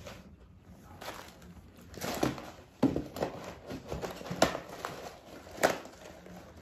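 Cardboard takeaway box and food packaging being handled on a wooden table: rustling with a handful of sharp knocks as things are picked up and set down, the loudest about four and a half seconds in.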